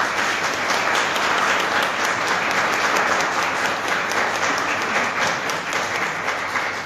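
Audience applauding, many hands clapping steadily and tapering off near the end.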